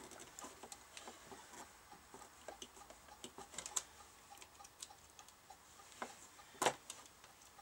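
Faint small metal clicks and scrapes as the circlip is worked off the idler wheel spindle of a BSR turntable deck, with one sharper click near the end.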